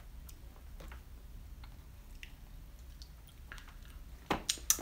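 Baby eating spoon-fed asparagus puree: faint wet mouth clicks and smacks, with a quick run of louder, sharp smacks near the end.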